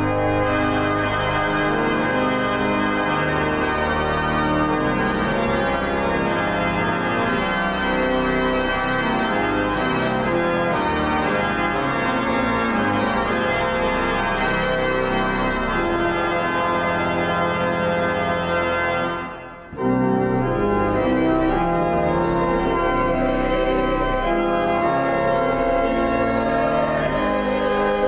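Pipe organ accompanying a choir singing a processional hymn, sustained chords throughout. About two-thirds of the way through the sound briefly fades away and snaps straight back.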